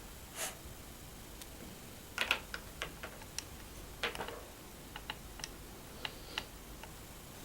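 Light, irregular clicks and taps from hands working play-dough and its plastic toy molds and tools, with a few sharper knocks about two and four seconds in.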